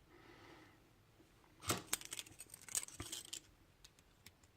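Light clicks and taps of a small lock and its metal parts being handled while it is taken apart. The clearest click comes a little under two seconds in and another about three seconds in, with softer ticks between.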